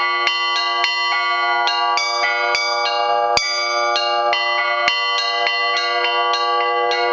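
Four antique Olovyanishnikov-foundry church bells rung by hand in a Russian Orthodox peal (zvon): small bells struck in a quick rhythm of about three strikes a second, their notes ringing on and overlapping, with a deeper bell sounding now and then, most strongly a little over three seconds in. The deepest voice is a podzvonny bell standing in for the main bell, which is cracked and silent.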